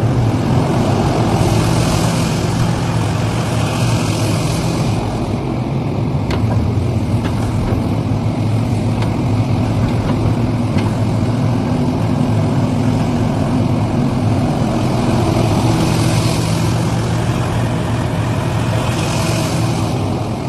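Heavy diesel engine of a Liebherr excavator running steadily under load, with two stretches of rushing hiss, one about a second in and one around sixteen seconds in.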